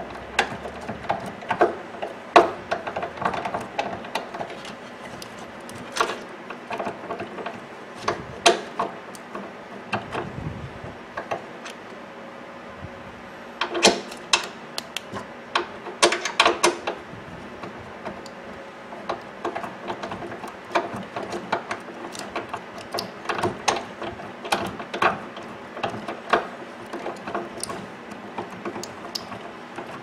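Irregular metallic clicks, clinks and scrapes of hand work inside a microwave oven's sheet-metal base as a replacement transformer is fitted, with a louder cluster of clicks about halfway through.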